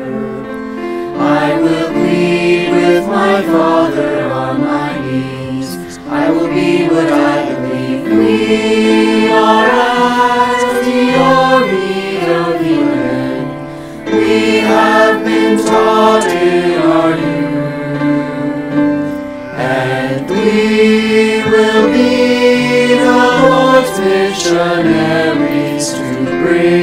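A mixed youth choir, multitracked from separate home recordings, singing in harmony over a recorded accompaniment, with brief breaks between phrases about six and fourteen seconds in.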